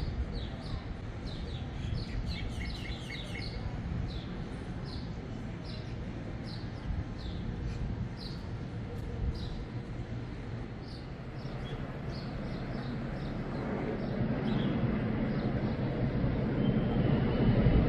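Small birds chirping over and over in short, quick downward-sliding notes, over a steady low city hum. In the last few seconds a low rumble grows steadily louder.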